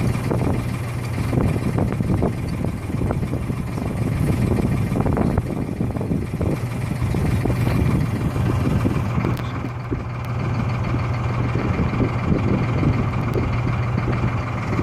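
A small boat's engine running steadily, a constant low hum, under rough wind and water noise.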